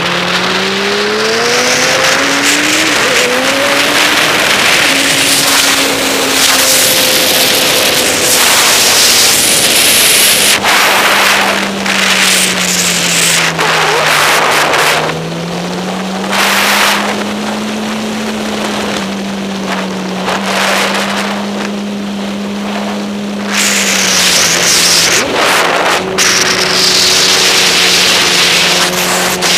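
Onboard sound of a sport motorcycle's engine at track speed under loud wind rush on the microphone. The engine note climbs in steps through the gears in the first few seconds, dips lowest about halfway through as the bike slows for a corner, then rises and holds again.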